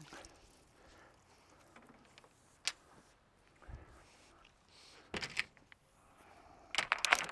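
Handling noises from plastic well drop pipe and a long rod being worked through it: a sharp click, a low thud, then clusters of knocks and scrapes near the end.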